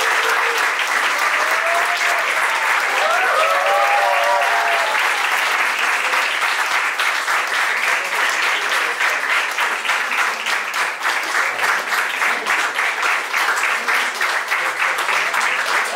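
A room full of guests clapping loudly and steadily, with a few voices calling out a few seconds in. Toward the end the clapping thins into more separate claps.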